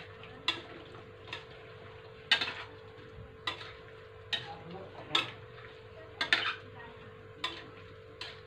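Metal spatula scraping and clinking against a wok as sliced vegetables are stirred, about once a second, over a steady hum.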